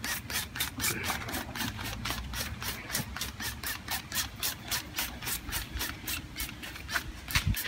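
Plastic trigger spray bottle pumped rapidly, giving quick, even hissing spurts of spray, about five a second.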